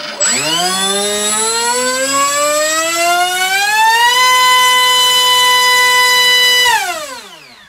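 NTM Rotor Drive 450 1700KV brushless motor spinning a 6x4 propeller cut down to about 5.5x4: a loud whine that rises in pitch over about four seconds as it runs up and holds steady at full throttle. It then falls in pitch as the motor spins down near the end.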